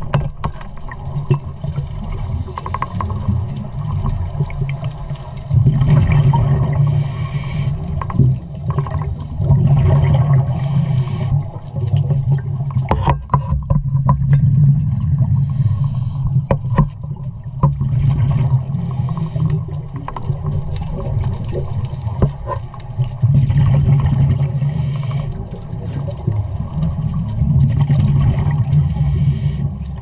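Underwater recording of a scuba diver breathing through a regulator: a low rumble of exhaled bubbles that swells every few seconds, broken by short hisses of air.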